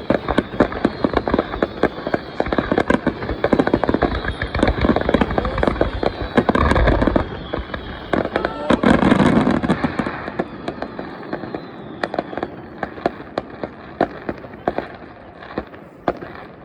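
Fireworks display: a dense barrage of crackling and popping shells, with heavy booms about a third of the way and halfway in, then thinning to scattered crackles.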